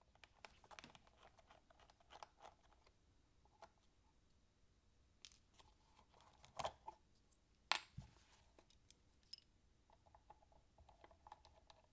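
Faint clicks and light knocks of a precision screwdriver working the screws on a small portable cassette player's case while it is turned in the hands. A few louder knocks come about six and a half and eight seconds in, and a run of small clicks near the end.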